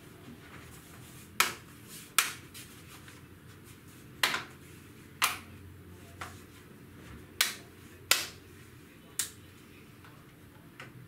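A series of sharp, short clicks at irregular intervals: about seven loud ones, with a few fainter ones between.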